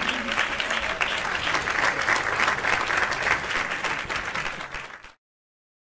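Live audience applauding, thinning out and then cutting off abruptly about five seconds in.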